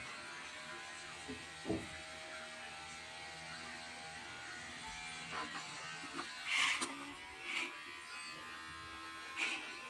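Steady electric buzzing hum, with a few short scuffling noises about two, six and a half, seven and a half and nine and a half seconds in.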